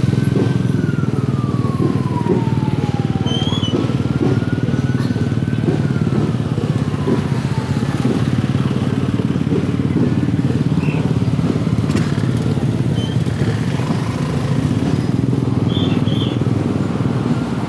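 Motorcycle and motorized tricycle engines running in slow street traffic, a steady close engine hum. In the first half, a whining tone twice rises and then slowly falls in pitch over a few seconds.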